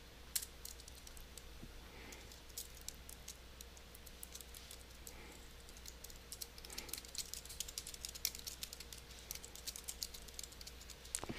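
Faint clicking of computer keyboard keys as a line of code is typed, in scattered keystrokes that come thicker in the second half.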